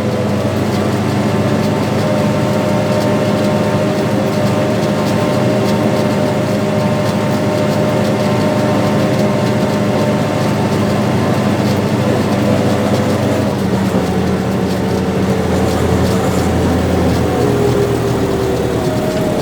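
Farm tractor's diesel engine running steadily under load while pulling a seed planter in low first gear. Its pitch dips slightly near the end.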